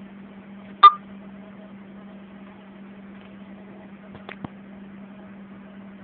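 One sharp metallic click with a brief ring just under a second in, then two faint clicks a little past four seconds, over a steady low hum.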